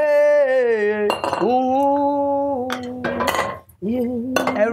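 A woman sings long held notes, the first sliding downward, over the clink and scrape of a metal frying pan and utensils against a bowl about a second in and again a little past three seconds.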